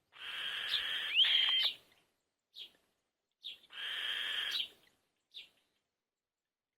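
Birds calling: two long raspy calls, each over a second long, with short chirps between and after them and a rising whistle about a second in.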